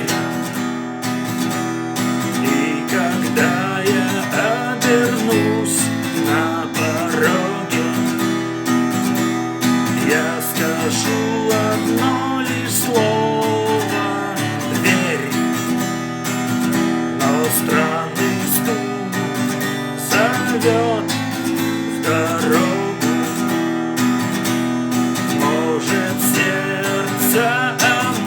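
Acoustic guitar strummed steadily, with a wavering melody line over the chords.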